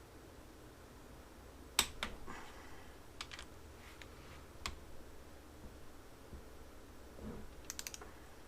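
Sharp metal clicks from a ratchet torque wrench tightening cylinder head bolts: one loud click about two seconds in, a few lighter clicks after, and a quick run of ratcheting clicks near the end.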